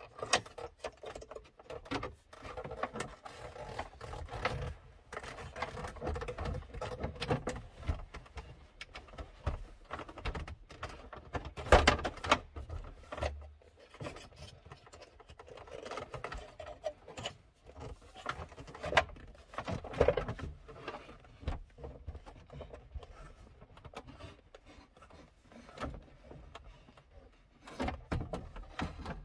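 Plastic trim clips clicking and the armrest rubbing and knocking against the console as a BMW E90's centre armrest is worked loose by hand and lifted out. The knocks come irregularly, the loudest one about twelve seconds in.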